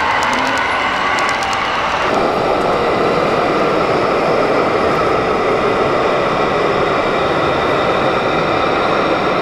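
A model freight train running with faint rhythmic clicking. About two seconds in it gives way to the steady running engine sound of a radio-controlled semi-truck.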